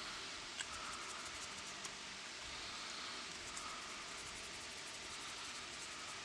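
Faint scratching of a needle-type scriber (God Hand Riegel Gerade) drawn along a plastic model part to engrave a panel line, in two short runs of light strokes over a steady hiss.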